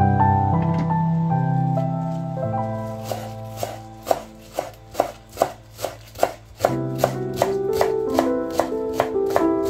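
Chef's knife chopping spring onions on a wooden cutting board, starting about three seconds in with sharp, even strokes about two a second, over background music.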